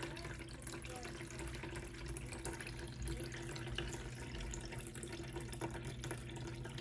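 Electric pet drinking fountain running on its weaker pump setting, its tall stream of water splashing steadily into the bowl, with a faint steady hum underneath.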